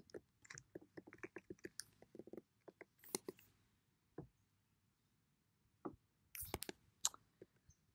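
Faint scattered clicks and light taps, a pause of near silence, then a few louder knocks near the end.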